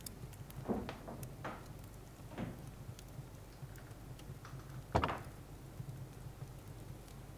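Soft knocks and taps from a grand piano's wooden case being handled, with one louder thump about five seconds in, over a low steady hum.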